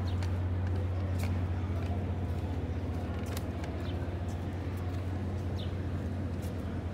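Outdoor ambience on a busy pedestrian promenade: a steady low hum, with scattered sharp clicks and a few short high chirps.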